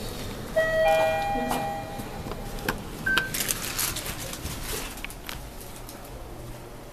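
Mitsubishi elevator's electronic arrival chime, several tones sounding together about half a second in and dying away over two seconds, followed by clicks and sliding-door and movement noise.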